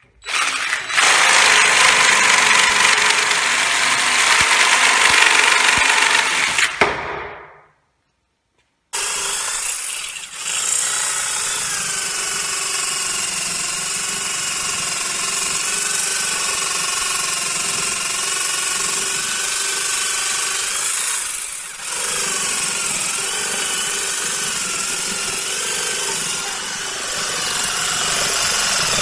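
Electric drill driving a sabre-saw attachment, the motor whining with a wavering pitch as the reciprocating blade cuts. The sound fades out and stops about seven seconds in, then starts again after a second or so and runs on steadily, with a couple of brief dips.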